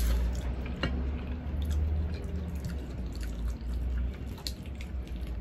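Close-up eating sounds: wet chewing, lip smacks and small sticky mouth clicks as pieces of pata kare-kare (braised pork hock in peanut sauce) are bitten and fingers licked, with many short clicks scattered throughout over a low steady hum.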